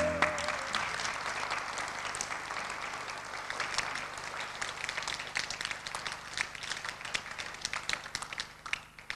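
Audience applauding: dense clapping that thins out to a few scattered claps near the end and then stops. A held flute note fades out at the very start.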